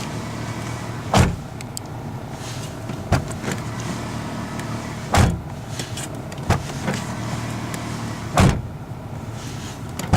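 A 1999 Toyota Corolla's door being opened with its newly fitted outside handle and shut again, over and over, to test the handle and latch: three loud door thuds with lighter latch clicks between.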